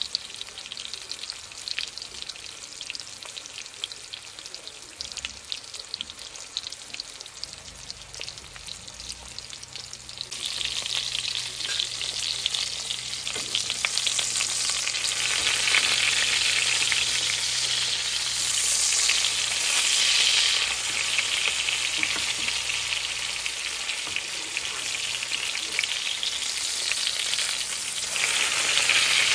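Flour-dredged chicken cutlets pan-frying in hot fat in a skillet, a steady sizzle full of small pops. The sizzle gets clearly louder about ten seconds in.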